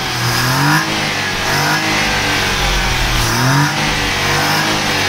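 Maruti Suzuki Alto 800's three-cylinder petrol engine being revved, its pitch rising and falling in about three blips of the throttle.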